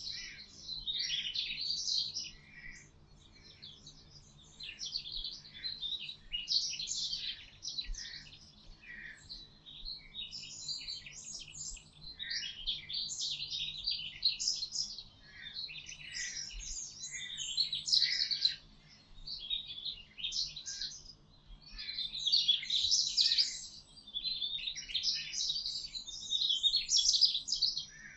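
Songbirds singing in a woodland chorus: bursts of high, chirpy song phrases every second or two, overlapping and rising and falling in loudness.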